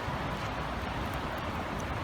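Steady light drizzle: an even hiss of rain with a few faint drop ticks, over a low rumble.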